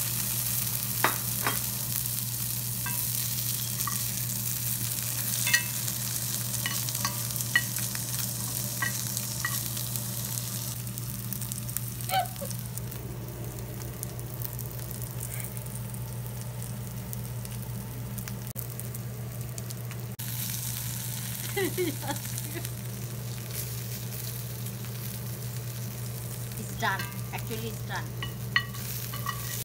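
Sliced onions and fried hilsa innards sizzling in hot fish oil in a cast iron skillet, with occasional clicks and scrapes of a metal spoon stirring against the pan. The sizzle eases for several seconds midway and then picks up again, over a steady low hum.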